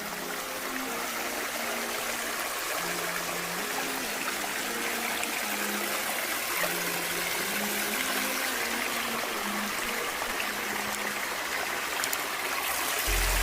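Steady rush of running water, with a soft background-music melody underneath.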